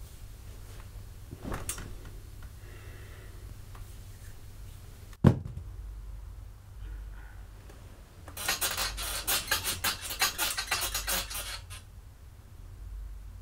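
Blanket and bedding rustling for a few seconds as a sleeper rolls over in bed. Before it, about five seconds in, comes one short sharp thump, the loudest sound.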